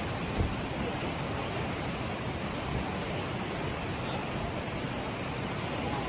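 Flash-flood water in a wadi rushing steadily over a road, an even, unbroken noise of torrent. A brief thump about half a second in.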